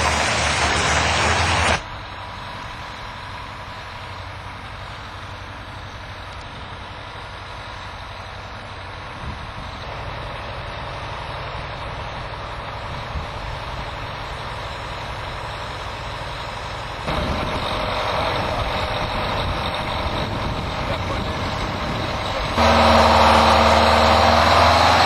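Heavy diesel engine running, heard in several abruptly cut segments that differ in loudness; the last and loudest segment starts near the end.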